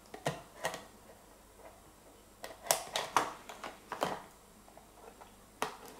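Knife blade of a multitool cutting and prying into cardboard packaging, giving an irregular run of sharp clicks, snaps and crackles, the loudest a little under three seconds in.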